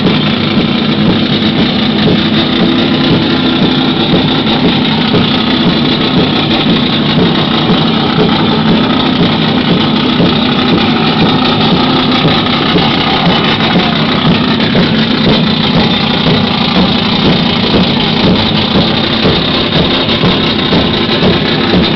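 Car engine idling steadily and loudly, with an even rapid pulse and no revving.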